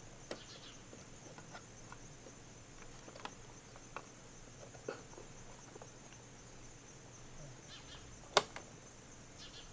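Insects trilling steadily in a high band, with scattered faint clicks and one sharp click about eight seconds in.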